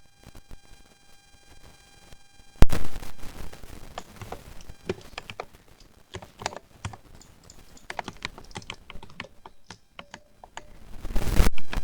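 Keys on a lubed mechanical keyboard being typed: faint at first, then a sharp knock about two and a half seconds in, followed by irregular clicking keystrokes of uneven strength. A louder noisy swell rises near the end.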